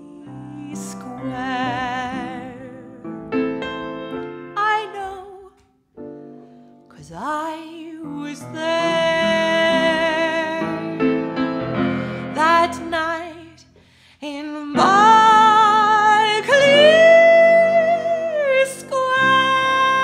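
A woman singing with wide vibrato, holding long notes over her own upright piano accompaniment. The sound drops out briefly about five and a half seconds in and again around fourteen seconds, and the longest, loudest held notes come in the second half.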